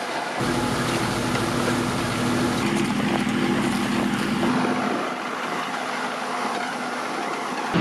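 Tractor engine running steadily under load as it pulls a Claas Liner rotary rake through dry hay. The engine note changes abruptly twice, about half a second in and again around four and a half seconds in.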